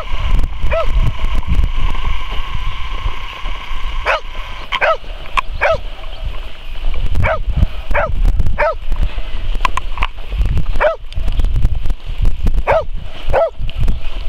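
Polish hound giving short, yelping barks in play, about ten of them in bunches of two or three, mostly from a few seconds in. A low rumble runs underneath.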